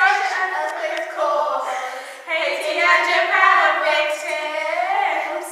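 Girls' voices singing together without accompaniment, in two long phrases with a short break about two seconds in.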